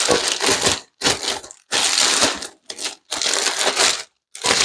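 Clear plastic packaging bag crinkling in five or six short bursts as a metal cooking plate wrapped in it is handled and unwrapped.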